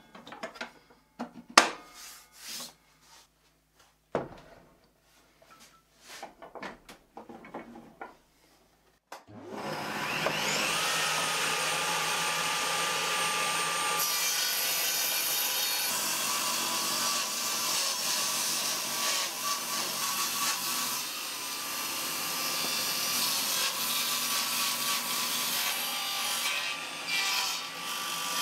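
A few clicks and knocks as the table saw's throat insert is handled. About nine seconds in, the table saw's motor starts with a rising whine that settles to a steady pitch. The blade then runs steadily, ripping a board lengthwise along the fence.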